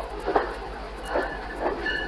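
Commuter-train passenger coach wheels clicking over rail joints as the last car rolls past, a knock every half second or so. A high steady wheel squeal starts near the end.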